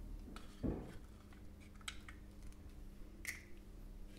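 Quiet kitchen handling sounds: a soft knock about half a second in, then a few faint light clicks.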